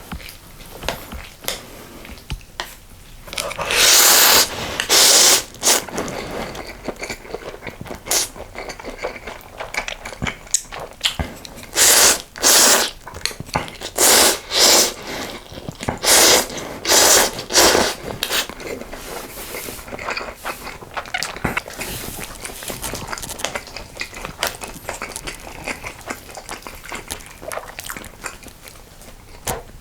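Close-miked eating of spicy sausage stew with ramen noodles: several loud slurps of noodles and broth, with chewing and small clicks of utensils in between.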